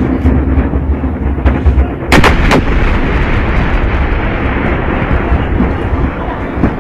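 Fireworks factory exploding: continuous low rumbling, with a quick cluster of about three sharp blasts a little after two seconds in.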